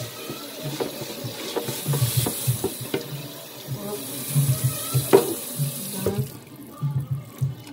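Kitchen tap running into a stainless steel sink while something is scrubbed and rinsed under the stream, with light knocks and one sharper knock about five seconds in. The rush of water stops about six seconds in.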